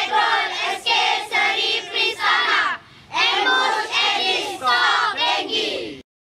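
A group of children and adults shouting a slogan together in unison, in short chanted phrases with a brief break about three seconds in. The sound cuts off abruptly about six seconds in.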